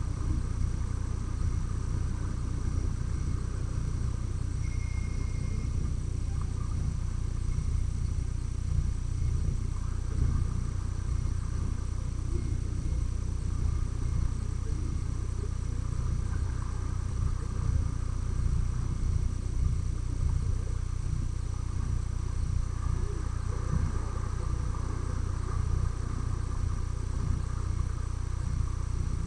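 A steady, flickering low rumble, with a faint steady high hiss above it and a brief high tone about five seconds in.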